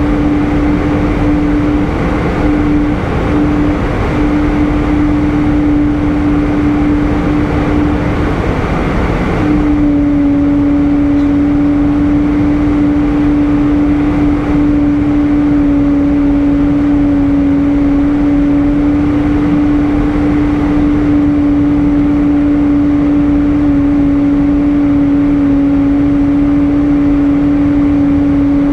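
Airbus A320 cabin noise in flight: a steady drone of engine and airflow with a strong, even hum over a thick rush of air. About a third of the way in, the high hiss drops away and the hum settles a little lower in pitch.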